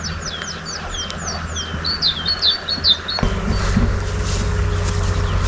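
A small songbird singing a quick run of short, high, falling whistled notes. About three seconds in, the song stops and a low rumbling noise sets in abruptly.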